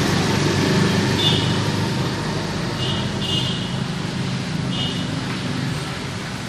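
A motor vehicle engine running steadily, a low hum over a haze of noise, with a few short high chirps about a second, three seconds and five seconds in.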